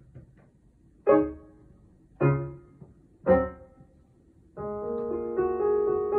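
Piano music: three single chords struck about a second apart, each left to ring and die away. A little over halfway through, a louder, sustained passage of many held notes begins.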